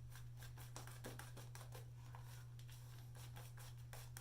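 Faint, quick scratchy strokes of a shaving brush's bristles working lather on the face, over a steady electrical hum.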